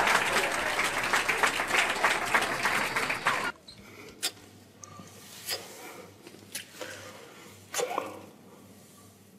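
A loud, dense crackle like applause cuts off suddenly about three and a half seconds in. Quiet wet kissing smacks and breaths follow, four or five short ones spread over the rest.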